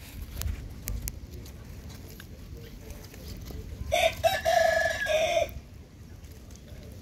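A rooster crows once, about four seconds in, for about a second and a half, over low rustling with a couple of small knocks in the first second.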